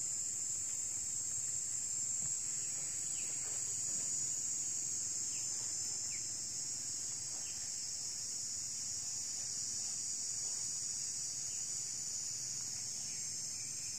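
Steady, high-pitched insect chorus buzzing without a break, with faint short falling chirps scattered through it.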